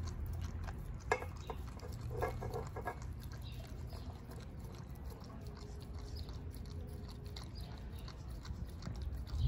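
Siberian husky eating a raw meal of chicken backs from her bowl: chewing with small crunches and clicks as she bites through the bones, a little louder about a second in and again about two seconds in, over a low steady rumble.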